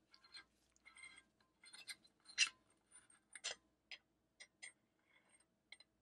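Faint, irregular clicks and light scrapes of threaded aluminum handle sections being unscrewed by hand, with two slightly louder ticks about two and a half and three and a half seconds in.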